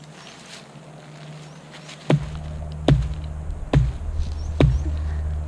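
Four sharp knocks a little under a second apart, starting about two seconds in, struck at the base of a metal carport.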